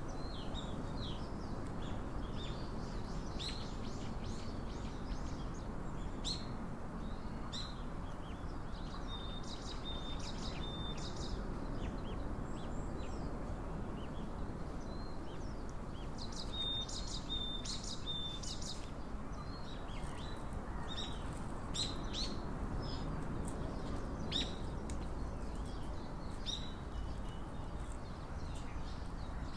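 Birds chirping outdoors: many short, high calls scattered throughout, with a few brief held whistling notes, over a steady low background noise.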